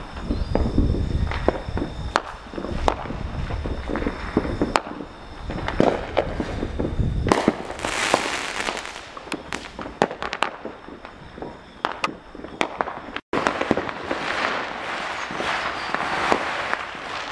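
Consumer fireworks going off: many sharp bangs of bursting aerial shells and firecrackers, with a deep rumble at first, then a dense crackling hiss of crackling stars from about seven seconds in.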